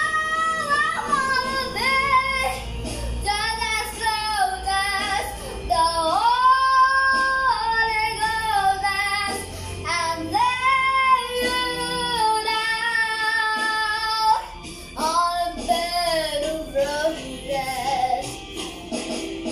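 A young girl singing a slow song, holding notes of a second or two with short breaks between phrases, over quieter instrumental backing music.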